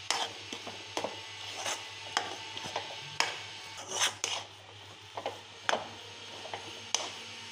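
Metal spoon scraping and knocking against a metal kadhai while stirring thick cooked semolina dough, in irregular strokes about once or twice a second, over a faint low steady hum.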